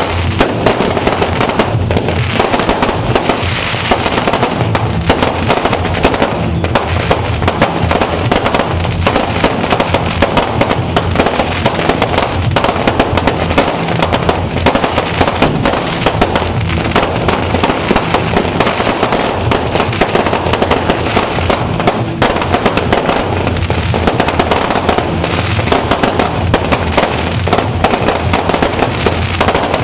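Fireworks and firecrackers going off in a dense, continuous crackling barrage, loud and without a break.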